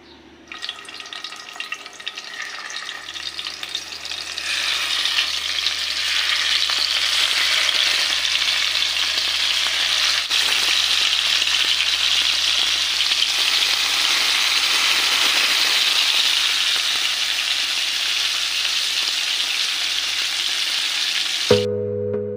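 Marinated hilsa fish pieces frying in hot oil in a wok: a sizzle that starts about half a second in, grows louder over the next few seconds and then holds steady. Music comes in just before the end.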